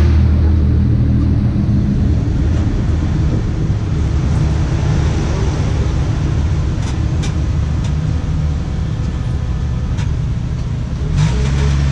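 The Conch Train tour tram's locomotive engine running at low road speed, with road noise from the open passenger car. The engine note drops about two seconds in and picks up again near the end. A thin high whine is heard for a few seconds in between.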